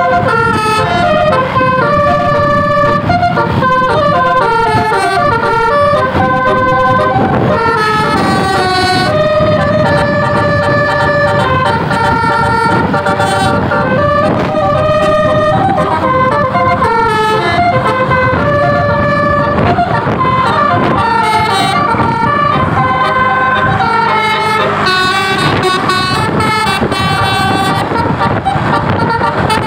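A tour bus's telolet (basuri) multi-tone horn playing a long melody of held, stepped notes, over the rumble of the bus.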